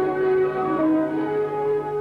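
Orchestral film-score music with slow, held notes that step from pitch to pitch.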